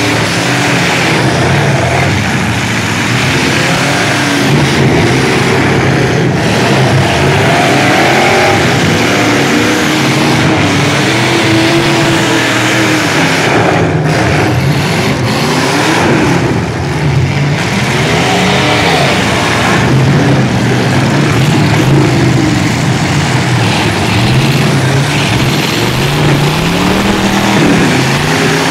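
Several demolition derby trucks' engines revving hard at once, their pitch rising and falling again and again over a dense, loud background of engine and arena noise as the trucks push and ram each other.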